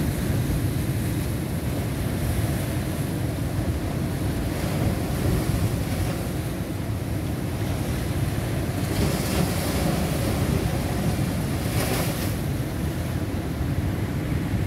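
Rough, storm-driven sea surf breaking on rocks and washing over a concrete quay, with strong wind rumbling on the microphone. The surf hiss swells about nine seconds in, and there is one short, sharp crash about twelve seconds in.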